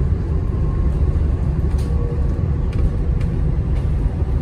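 Inside a BYD Alexander Dennis Enviro200EV battery-electric bus on the move: a steady low road rumble, a faint steady whine and a few light rattles.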